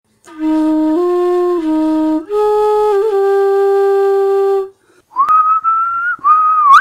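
A flute plays three low notes, the last held for about two seconds, then stops. After a brief pause a whistle sounds, rising in pitch, breaks off, and rises again, sliding up near the end.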